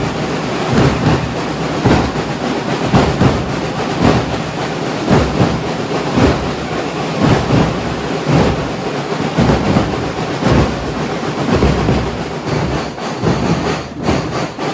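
Loud live music with regular drum hits, recorded close up and heavily distorted, so it comes through as a dense rumbling noise.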